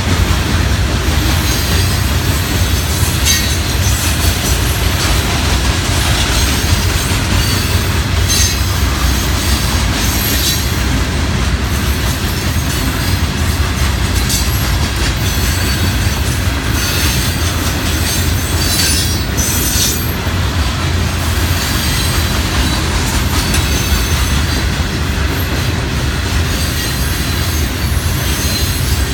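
Freight train of loaded rock hopper cars rolling past: a steady rumble of steel wheels on the rails, with brief high-pitched wheel squeals several times.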